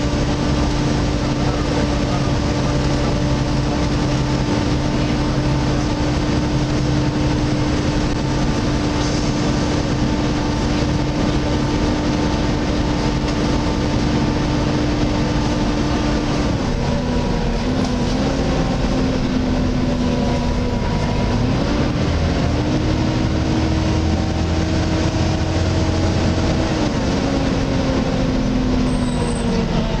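Volvo B7TL double-decker bus's engine cooling fan whining loudly with a vacuum-cleaner-like 'hoover' sound, heard inside the bus over engine and road rumble. The whine holds a steady pitch for about half the time, then drops, climbs back up and falls again near the end.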